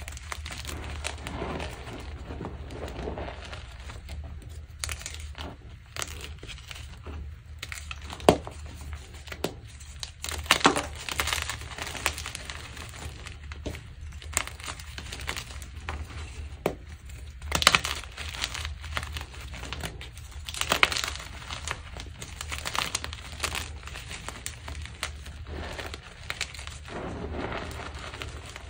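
Pink-dyed gym chalk being crushed: a run of irregular crunches and crackles with a few sharper snaps, over a steady low hum.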